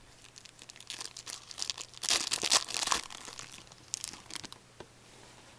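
Foil wrapper of a hockey card pack crinkling and being torn open by hand, in bursts of crackling that are loudest about two to three seconds in.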